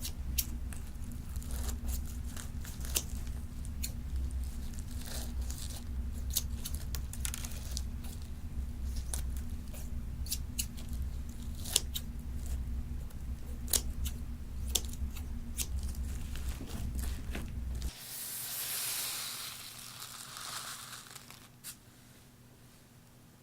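Glossy slime mixed with foam beads being worked by hand, giving quick, irregular crackles and pops as the beads are squeezed. After a cut, about three quarters of the way in, there is a softer, longer stretching and tearing sound that fades out.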